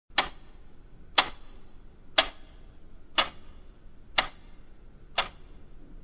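A clock ticking once a second, each tick a sharp, evenly spaced click.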